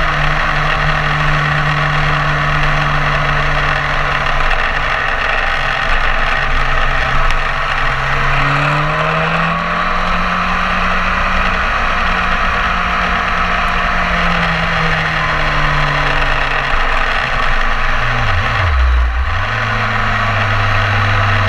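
BMW S1000RR inline-four sportbike engine running at moderate revs, with a loud rush of wind over the bike. The engine note eases down and back up a few times, then dips sharply near the end and settles at a lower pitch.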